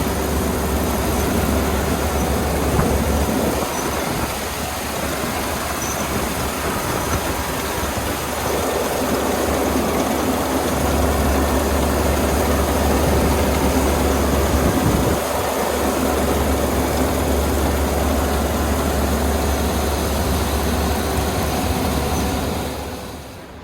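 Kubota ER470 combine harvester's diesel engine and threshing machinery running steadily while harvesting rice, with a deep low hum under a dense mechanical din. The noise drops away suddenly near the end.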